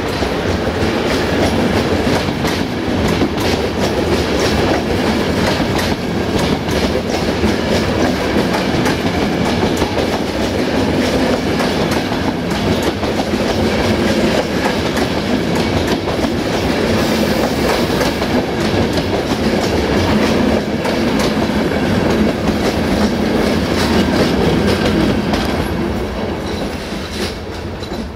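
Passenger train coaches passing close at speed: a steady rumble with wheels clattering over rail joints, fading near the end as the last coach goes by.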